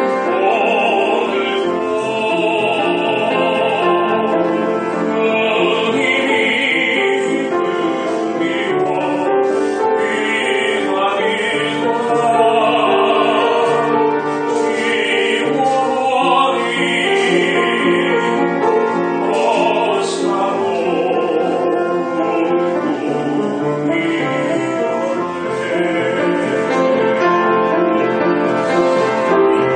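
A male classical singer sings in operatic style with vibrato, accompanied by piano.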